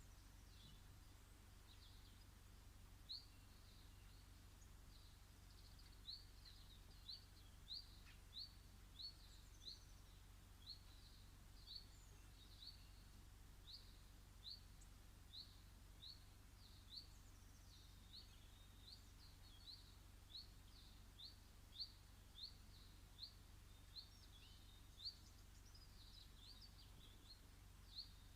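A bird in a garden repeating one short, high chirp over and over, about one to two chirps a second, faint against a low steady hum.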